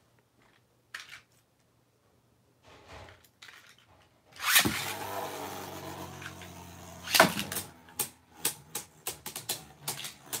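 Beyblade Burst spinning tops launched into a plastic stadium. One lands about halfway through and spins with a steady whir, a second lands with a sharp clack a few seconds later, and then the two tops clash in a rapid run of plastic clicks.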